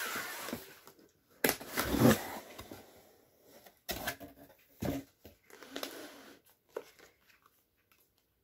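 A cardboard gift box handled and opened by hand. It starts with a scraping slide, then comes a run of sharp knocks and flaps from the box and its lid, the loudest about two seconds in, followed by quieter paper rustling.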